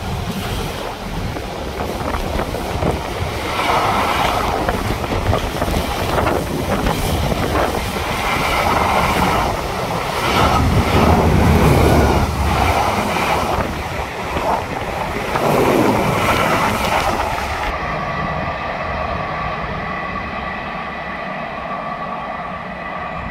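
Container wagons of a long freight train rolling past at speed: a steady rumble and clatter of wheels on rail that swells several times as the wagons go by. After about eighteen seconds it drops to a quieter, fading hum as the train draws away.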